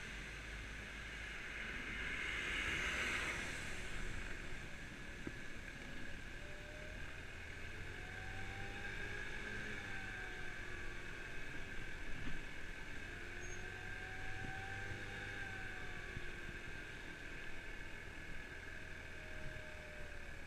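Kymco Agility 50cc scooter engine running on the move, its pitch slowly rising and falling with speed, under a steady hiss of wind and tyres on a wet road. A brief swell of hiss comes about two to three seconds in.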